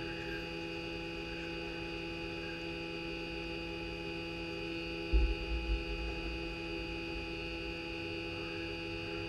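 A steady hum made of several fixed tones, with a few low thumps about five seconds in.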